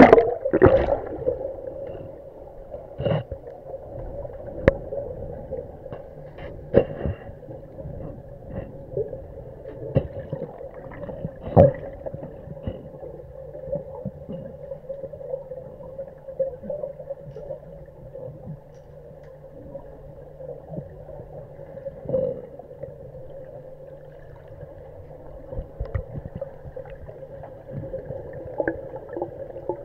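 Underwater sound in a deep diving pool as the camera goes under with a splash and a rush of bubbles, then a steady underwater hum with scattered sharp clicks and knocks.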